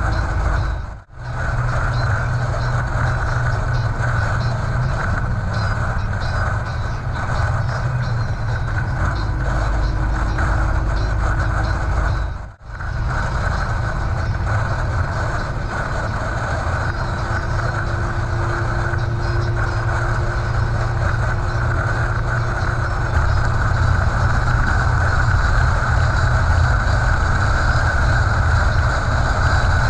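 Steady drone of a semi-truck's diesel engine and road rumble heard from inside the cab at highway speed. The sound dips out briefly twice, about a second in and near the middle, and grows a little louder near the end.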